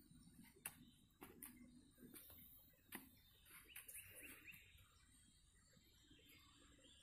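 Near silence: faint outdoor ambience with a few soft clicks in the first three seconds and faint bird chirps about halfway through.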